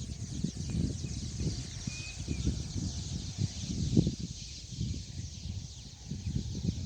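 Wind buffeting the microphone in uneven gusts, over a steady high chatter of a flock of birds calling, with one short whistled chirp about two seconds in.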